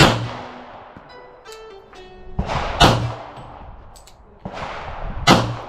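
Glock 22 Gen 5 pistol in .40 S&W firing three single shots a little under three seconds apart, each a sharp crack with a trailing echo.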